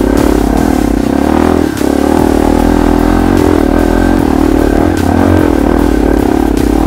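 Small four-stroke single-cylinder dirt bike engine running up close, its pitch rising and falling a little as the throttle is worked through a rough trail section. A few sharp clicks come over it, the clearest about five seconds in.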